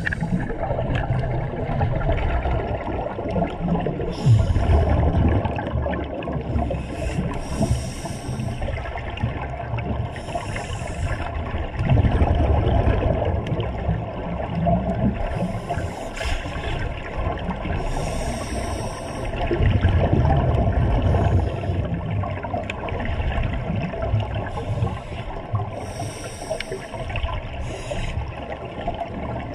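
Scuba divers breathing through regulators underwater: hissing inhalations and bubbly, gurgling rumbles of exhaled air, coming every few seconds.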